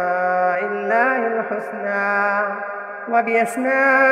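A man's voice chanting an Arabic supplication in drawn-out melodic recitation style. He holds long notes that slide slowly in pitch, breaks off briefly about three seconds in, and starts a new phrase.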